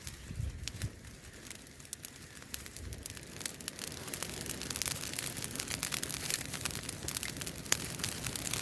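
Campfire crackling: irregular snaps and pops of burning wood that grow busier from about halfway through, with a couple of low thuds near the start.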